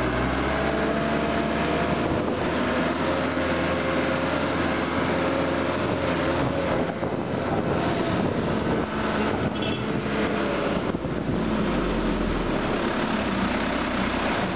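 Vehicle engine running steadily as the vehicle drives slowly, its pitch easing slightly as it goes.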